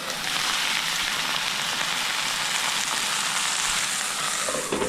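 Wild ramps sautéing in olive oil in a pan, a steady sizzle.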